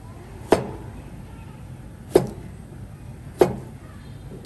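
Chinese cleaver chopping through a cucumber into a plastic cutting board: three sharp chops about a second and a half apart, each with a brief ringing tail.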